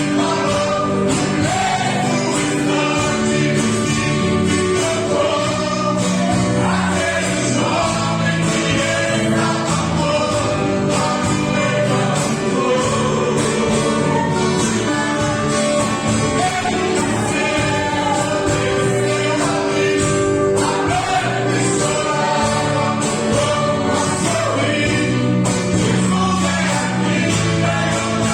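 Gospel hymn sung by two men over an instrumental backing with a steady beat.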